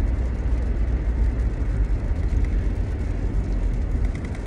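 Car on the move heard from inside the cabin: a steady low rumble of road and engine noise.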